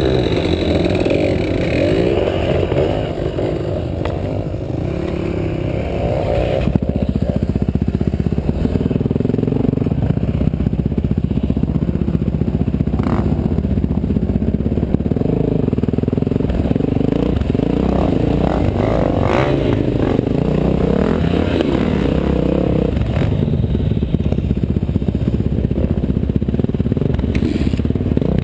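Dirt bike engines running off-road, their pitch rising and falling with the throttle. The sound changes abruptly about seven seconds in, and again a few seconds before the end.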